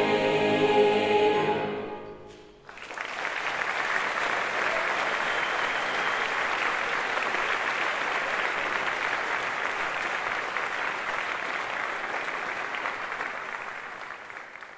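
A massed choir holds the final chord of a song, which dies away about two seconds in; then the audience breaks into steady applause, which fades out near the end.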